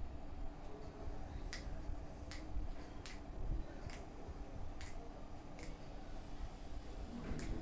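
A series of about seven sharp clicks, most a little under a second apart in a fairly even rhythm, over a low room rumble.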